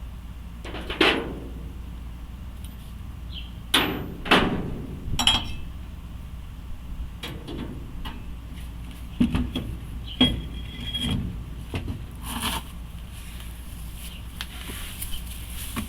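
Scattered knocks and clanks of tools and metal parts being handled, about a dozen in all, a couple of them ringing briefly like struck metal.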